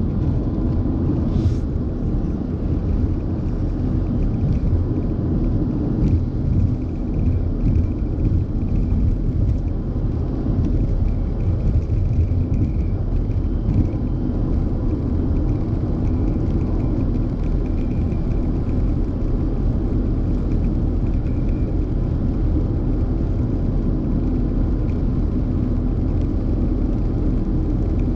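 Steady low rumble of a car cruising at motorway speed, heard inside the cabin: tyre, road and engine noise, with no marked changes.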